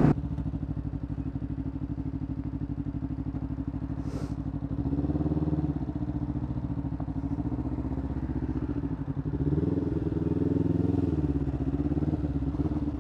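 Kawasaki GPZ500S parallel-twin engine idling with a fast, even pulse, then revving up and easing off several times as the bike moves off and creeps through slow traffic. One short click about four seconds in.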